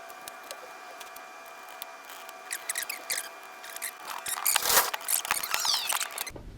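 Small plastic parts being handled and fitted together: scattered clicks and scraping that build from about two seconds in, with a few short falling squeaks near the end, over a faint steady whine.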